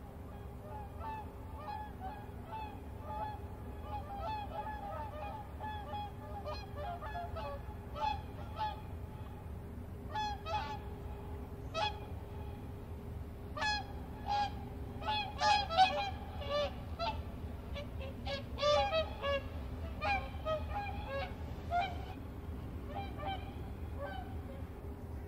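A flock of geese flying over, honking many times. The calls grow denser and louder in the middle, over a steady low hum.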